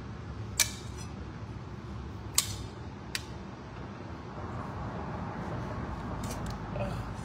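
A table knife clinks and taps against a metal plate a handful of times, sharp separate clicks spread a second or more apart, as a small child cuts fruit on it, over a steady low room hum.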